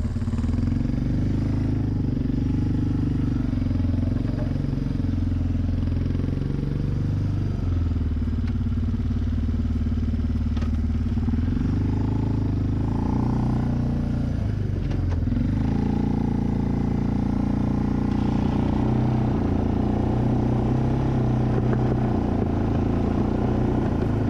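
Suzuki Eiger 400 ATV's single-cylinder four-stroke engine running while plowing snow with a front blade, its engine note dipping and rising twice as the machine slows and picks up speed, then running steady.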